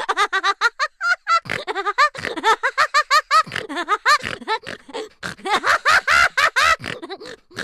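High-pitched laughter in quick, rapid bursts of about four a second, with a couple of brief breaks.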